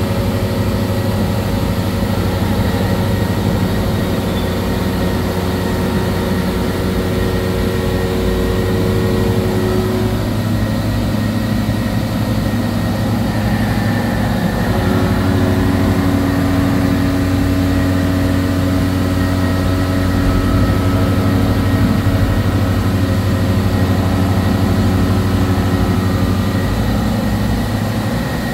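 Gildemeister Twin 65 CNC turning and milling center running, with coolant spraying in the work area: a loud, steady mechanical hum with several held tones over a hiss. Some of the tones drop out about ten seconds in, and a new lower tone comes in about fifteen seconds in.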